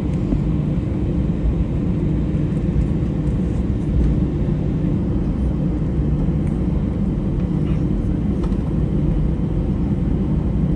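Steady low rumble and hum of an airliner cabin while taxiing after landing: the jet engines at idle and the wheels rolling along the taxiway.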